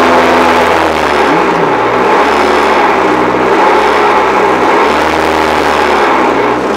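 Renault Clio R3 rally car's naturally aspirated 2.0-litre four-cylinder engine running hard under load, heard from inside the cabin, its revs rising and dipping several times through the stage.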